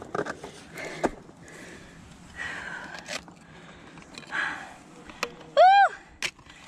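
Ice climber breathing hard between a few sharp strikes of ice axes biting into ice. Near the end comes a short, high-pitched vocal yelp that rises and falls.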